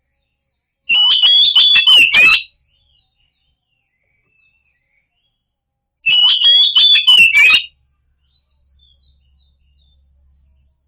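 Oriental magpie-robin (kacer) song: the same loud phrase of whistles and sharp clicking notes, about a second and a half long, given twice about five seconds apart. It is a lure recording meant to get a silent kacer to answer.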